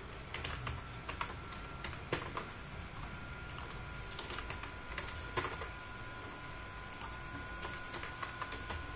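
Computer keyboard typed on in scattered, irregular keystrokes, over a faint steady high tone.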